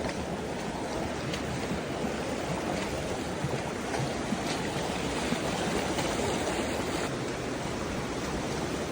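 Water of Kanarra Creek rushing steadily over rocks.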